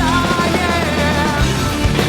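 Loud rock soundtrack music with distorted guitar, drums and a sung melody.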